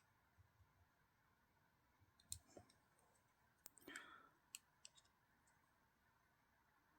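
Faint, sparse clicks of a small screwdriver and tiny screws being handled while a folding knife's handle is put back together, a handful of them between about two and five seconds in, with a short scrape among them.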